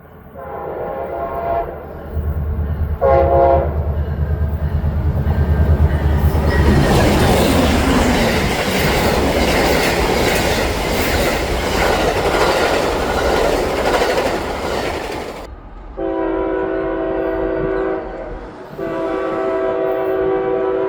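Locomotive air horns: a long blast and then a short one, with a deep engine rumble under them, followed by the loud rushing and rail clatter of the train passing. After an abrupt change about 15 seconds in, another train horn sounds two long blasts.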